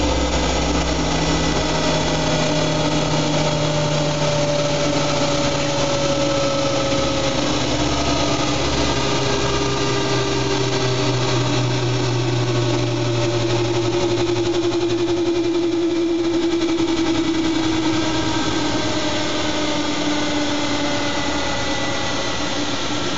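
Siemens Siwamat 7163 iQ washing machine running mid-cycle: a steady machine hum with several whining tones that slowly fall in pitch as the motor changes speed, with a shift to new tones about two thirds of the way through.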